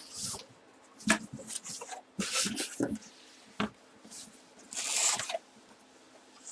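A cardboard box and its packaging being opened by hand: a run of short scraping and rustling rasps, broken by a couple of sharp clicks.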